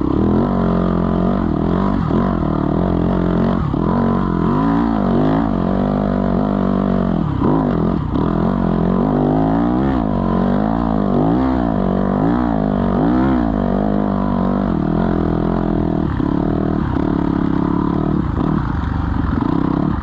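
Small off-road vehicle engine running under load, revving up and dropping back over and over, about once a second through the middle stretch.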